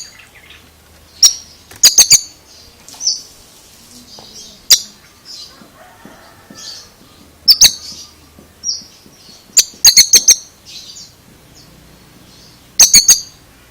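Oriental magpie-robin (kacer) calling: short high chirped notes broken by loud, sharp clicks, some single and some in quick runs of three or four.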